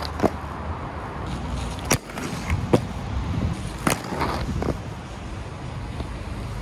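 Aggressive inline skates rolling over a concrete skatepark, with a steady wheel rumble and several sharp clacks of the skates hitting the ramps, most of them between about two and five seconds in.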